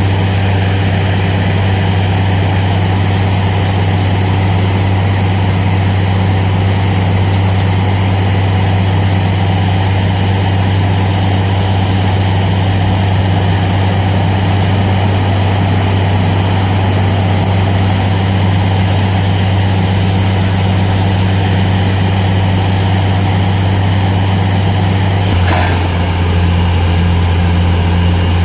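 Borewell drilling rig's engine running steadily under load, a loud, deep, even hum. About 25 seconds in there is a faint click and the hum shifts slightly in pitch, then carries on.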